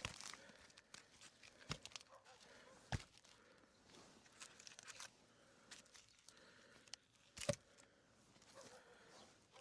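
Split firewood being stacked: three sharp wooden knocks as pieces are set down, the loudest about seven and a half seconds in, with faint rustling and small clicks between.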